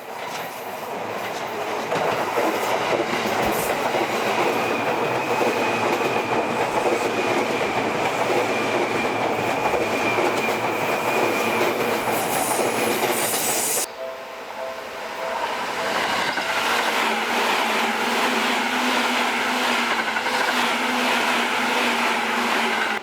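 Seibu Railway New 2000 series electric train running past on the rails, with wheel and track rumble and clickety-clack. The sound cuts off abruptly about 14 seconds in and gives way to another stretch of train running noise with a steady motor whine.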